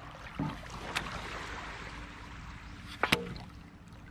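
A motor hums steadily beside a small fishing boat being hauled up the beach, over a wash of water noise. There is a light knock about a second in and a louder, sharp knock about three seconds in.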